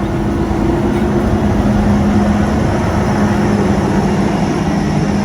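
Engine of a vintage farm machine running steadily: a loud, even drone with a constant low hum.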